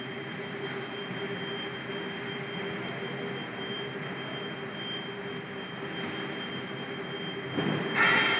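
Steady hum of factory machinery, with a constant high whine and a lower steady tone over it. Near the end a brief louder pitched sound rises above it.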